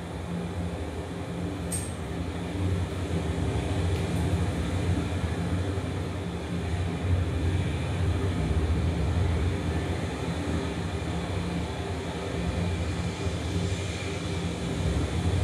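A steady low rumbling drone that swells and eases slightly, with a couple of faint high tones held above it. Two light clicks come about two and four seconds in.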